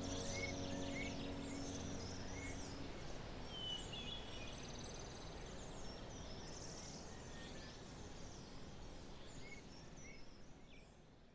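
Outdoor ambience of birds chirping, with a trill about four seconds in, over a soft high hiss, fading out near the end. The held notes of background music die away during the first few seconds.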